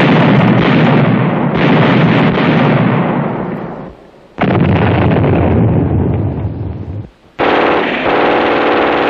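Heavy sustained gunfire in three long volleys of about three seconds each. Each volley stops abruptly before the next begins.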